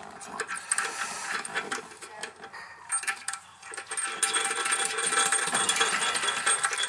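Small metal clinks and clicks as a washer and nut are handled and threaded onto a new brass toilet tank bolt. The clicks are scattered at first, then from about four seconds in they become a fast continuous clicking as the nut is spun down the thread.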